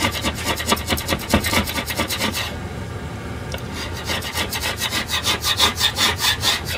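A flat scraper blade scraping burnt-on residue off a glass cooktop, in rapid short back-and-forth strokes several times a second. The strokes pause for about a second partway through, then start again.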